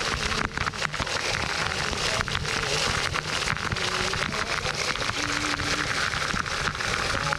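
Waterfall water pouring and splashing right onto the microphone: a loud, steady, dense rush of falling water.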